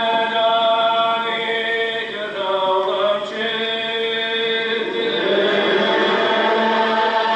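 Gaelic psalm singing: a congregation singing unaccompanied in slow, long-drawn notes. Many voices slide together from one held note to the next, with a change of note about halfway through.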